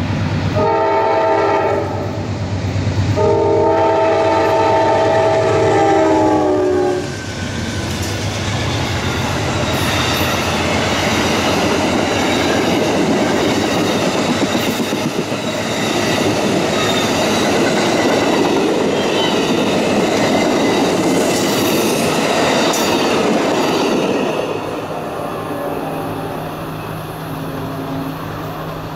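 Amtrak Silver Star passenger train passing at speed. Its locomotive horn sounds twice, a short blast then a longer one whose pitch drops as it goes by. The cars then roll past with clickety-clack wheel noise over the rails, easing off a few seconds before the end.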